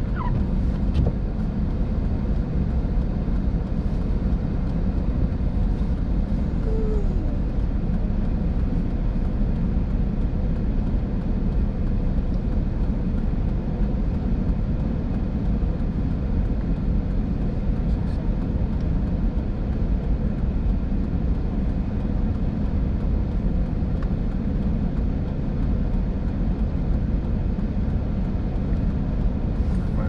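Steady low rumble of a car idling while stopped, heard from inside the cabin. A windshield wiper sweeps across the glass once at the very start.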